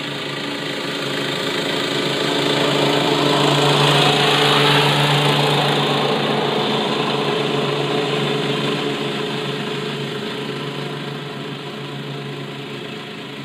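Gas lawn mower engine running steadily under load while cutting grass, growing louder to a peak about four to five seconds in and then slowly fading as it moves away.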